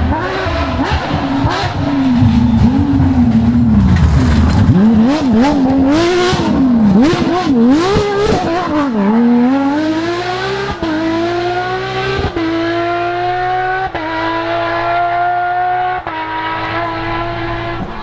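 Porsche 997 GT3 rally car's flat-six engine at full throttle. The revs jump quickly up and down for the first half, with sharp cracks in the middle. It then accelerates away, rising in pitch through four upshifts, each a short drop.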